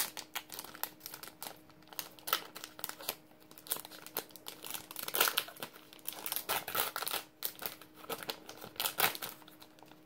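Trading-card packaging being opened by hand: irregular crinkling and crackling, loudest in a few clusters around the middle.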